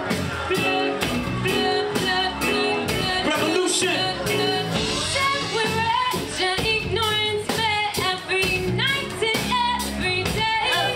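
Live band playing, with a woman singing over a steady drum beat and guitar.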